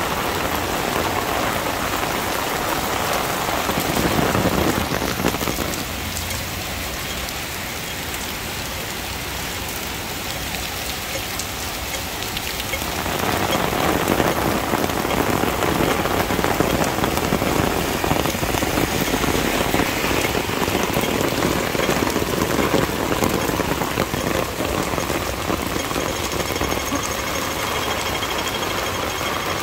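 Torrential black-rainstorm rain pouring onto the street and beating on an umbrella overhead: a steady, loud hiss that eases for several seconds about a quarter of the way in, then grows heavier again.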